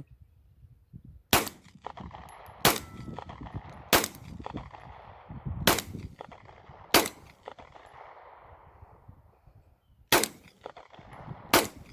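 Seven single shots from a Polymer80 Glock 19-pattern 9mm pistol, fired at an uneven pace one to three seconds apart, each followed by a rolling echo. The gun cycles from a 33-round extended magazine without a hang-up.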